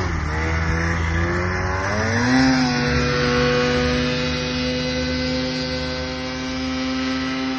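Snowmobile engine pulling hard through deep powder: its note climbs in pitch over the first couple of seconds, then holds steady at high revs.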